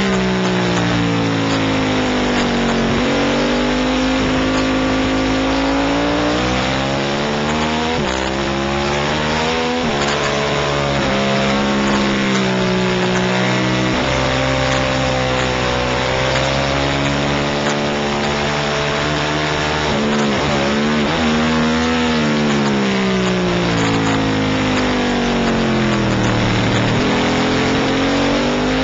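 Racing motorcycle engine under hard acceleration, heard close from a camera on the bike, with a rush of wind. Its pitch climbs and drops back over and over as it shifts through the gears and slows for corners, with short quick rises around the downshifts.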